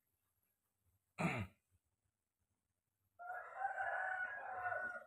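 A rooster crowing once, one long call of about two seconds that begins a little past the three-second mark. About a second in there is a short, loud, low burst.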